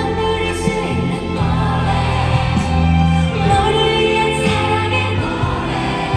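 A live pop song: a woman singing with a band, fuller vocals joining in like a choir.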